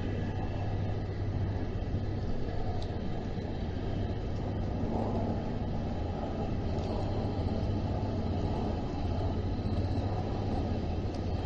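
Steady low rumble with a constant hum, the ambient mechanical noise of an outdoor harbour.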